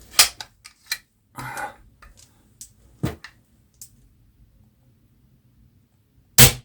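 Scattered sharp clicks and knocks as a freshly rebuilt Benjamin 3600 CO2 airgun is handled, with a louder knock near the end.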